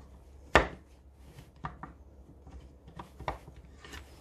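Steel precision angle blocks clicking and knocking against each other and their wooden case as one block is set back into its slot and another lifted out: about half a dozen sharp clicks, the loudest about half a second in.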